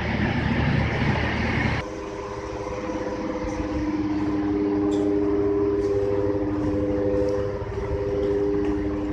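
Ship's machinery and ventilation noise aboard a Ro-Ro passenger ferry: a loud rumbling rush cuts off abruptly about two seconds in, leaving a quieter steady hum with several held tones.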